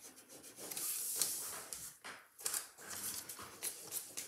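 Ink-soaked pad scrubbing and dabbing green ink into the textured surface of a collagraph plate: a soft rubbing hiss, then a run of quick short dabs in the second half.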